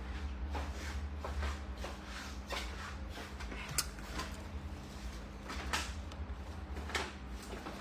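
Someone rummaging through drawers and cupboards: soft scrapes and knocks, with one sharp click a little before the middle, over a steady low room hum.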